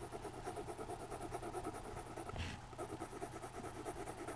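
Coloured pencil shading on drawing-pad paper: a soft scratching made of quick back-and-forth strokes.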